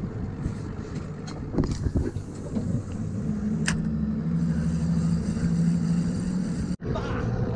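A boat engine running at a steady pitch, coming up from about two and a half seconds in, with wind buffeting the microphone and a few sharp clicks.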